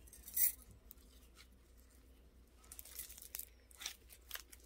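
Slime being stretched and squished by hand, making faint, scattered crackles, with a louder crackle about half a second in.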